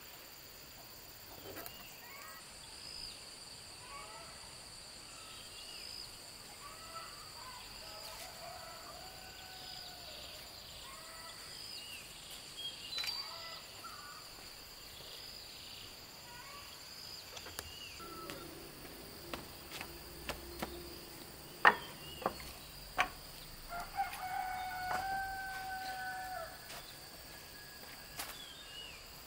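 Chickens calling in short clucks, and a rooster crowing once about four-fifths of the way in, over a steady high-pitched hum. A little before the crow come three sharp knocks, the loudest sounds here.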